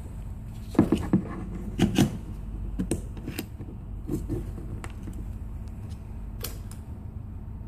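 Clicks and knocks of Walther P22 pistol parts being handled and fitted together during reassembly: a cluster of sharp clicks about a second in and again about two seconds in, then scattered lighter clicks.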